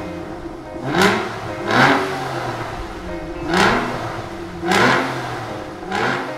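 Aston Martin DB9's V12 engine blipped five times in short revs, each rising sharply in pitch and falling away, over background music.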